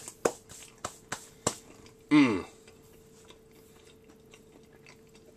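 A person chewing a bite of dark-toasted grilled cheese sandwich: several crisp crunches in the first second and a half, then a short hum with falling pitch about two seconds in.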